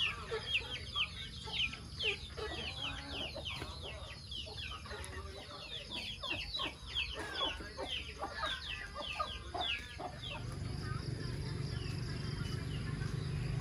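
Chickens cheeping and clucking, many short falling high-pitched calls in quick succession. The calls die away about ten seconds in, and a steady low hum takes over.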